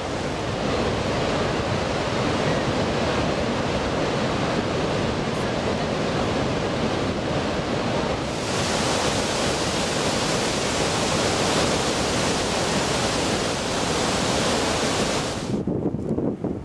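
Victoria Falls pouring into its gorge: a steady, dense rush of falling water and spray. About eight seconds in it turns brighter and hissier, and near the end it drops to a duller, uneven rush with wind buffeting the microphone.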